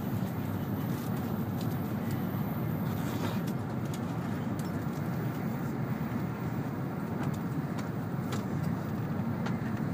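N700-series Shinkansen train running at speed, heard from inside the passenger cabin: a steady low running noise with a few faint ticks.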